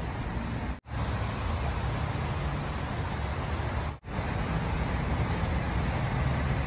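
Steady city street traffic noise, an even hiss with a low engine hum underneath. It cuts out abruptly for a split second twice, about one second in and again about four seconds in.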